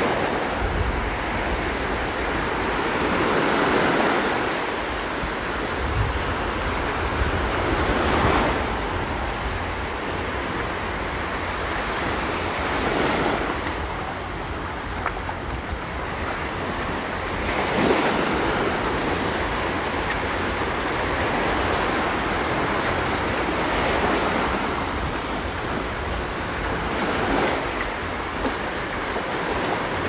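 Small waves washing up on a sandy beach, the surf swelling every four to five seconds, with wind rumbling on the microphone.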